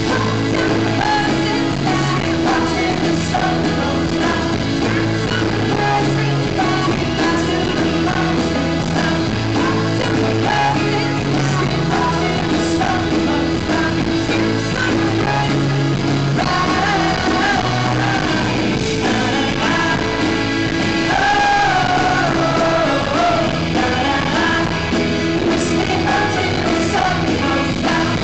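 Indie folk-rock band playing live in a concert hall, with lead and group vocals over steady bass, guitars and drums. Sung vocal lines stand out most about two-thirds of the way through.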